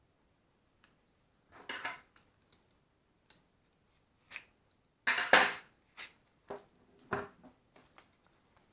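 Scattered clicks, rustles and clatter of small hard parts being handled, in irregular bursts, loudest a little past the middle, with no motor running.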